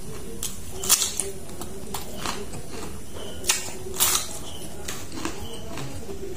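Crisp crunching bites into a raw cucumber, with chewing; the sharpest crunches come about a second in and again around three and a half to four seconds. A steady low hum runs underneath.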